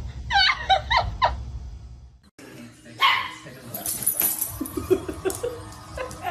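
A dog barking and yipping in short calls, broken by a brief drop-out about two seconds in.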